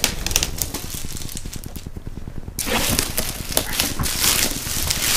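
Clear plastic shrink wrap crinkling and crackling as it is pulled and torn off a model kit box by hand. The crackle gets denser and louder about two and a half seconds in.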